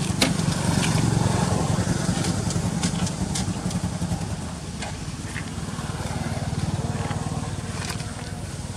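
Engine running with a pulsing low rumble. It swells about a second in, eases off by about five seconds and swells again around seven seconds. Scattered short clicks sound over it.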